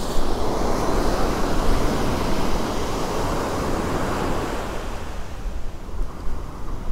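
Ocean surf breaking and washing up a sandy beach, with wind rumbling on the microphone; the rush of the wash eases about five seconds in.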